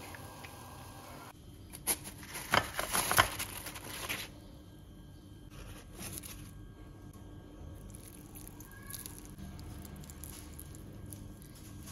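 Fried shrimp-and-tofu patties handled on a paper towel: a burst of crisp crackling and rustling about two seconds in, then sparse faint rustles.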